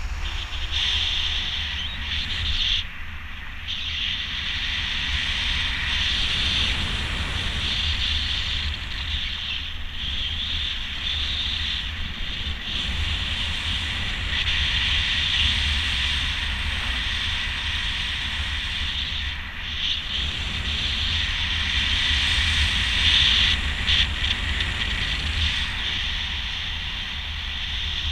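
Wind rushing over the camera microphone in flight under a speedflying wing: a steady low buffeting rumble under a hiss, with brief dips now and then.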